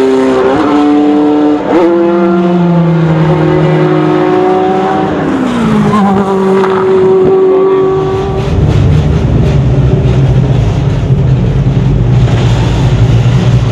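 Race car engine at full throttle up a steep uphill corner. Its note jumps in pitch twice in the first two seconds, like gear changes, then drops as the car goes past about five seconds in. From about eight seconds a lower, rougher, steady engine rumble takes over.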